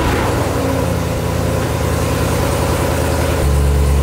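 Chevrolet Corvette's V8 engine idling just after starting up, a steady low rumble that gets louder and deeper about three and a half seconds in.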